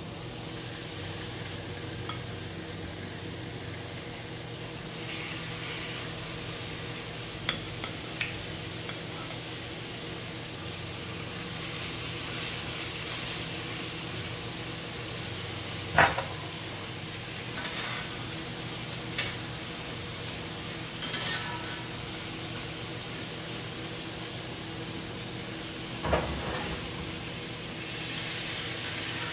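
Marinated steaks sizzling in butter and olive oil in a hot skillet, a steady hiss over a low hum. A few sharp clinks of a utensil against the pan break in, the loudest about halfway through and again near the end.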